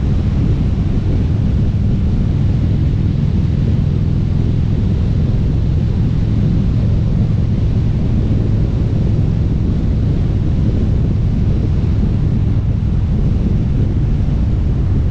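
Harley-Davidson V-twin engine and exhaust running at a steady cruise, with wind buffeting the microphone. It holds an even low drone with no change in revs.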